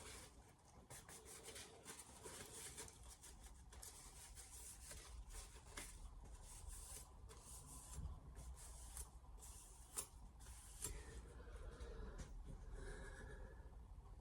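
Faint cloth rubbing and scattered small clicks as a freshly sharpened knife is wiped dry and handled.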